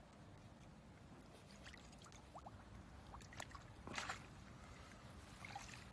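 Faint sloshing and small splashes of river water as a landing net and fish are handled in the shallows, with a few soft clicks and one short, sharper splash or knock about four seconds in.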